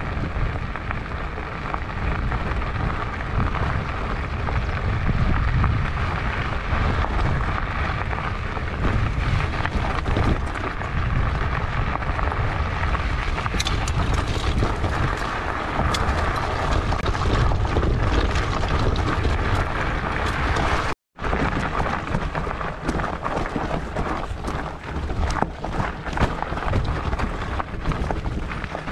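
Fatbike tyres rolling over a gravel and loose-stone track, heard through a handlebar-mounted GoPro: a steady low rumble and wind on the microphone, with many small rattles and knocks from the stones and bike. The sound cuts out completely for a moment about two-thirds of the way through.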